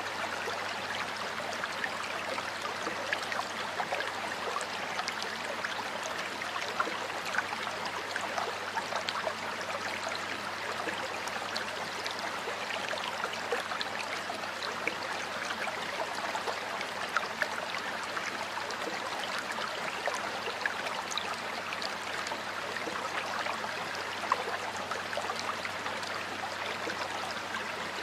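Stream water flowing steadily, a continuous rush with small splashes and gurgles standing out here and there.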